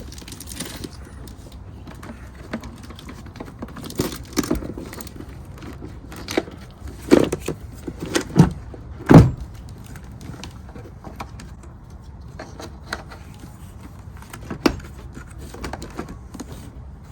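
Scattered clunks and knocks as a new car battery is set down into a Jeep Wrangler's battery tray and the cables are moved around it. The loudest thuds come in a quick cluster near the middle.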